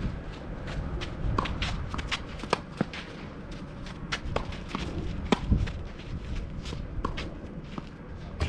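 Footsteps shuffling on a clay tennis court, heard as a scatter of short, irregular clicks and scuffs.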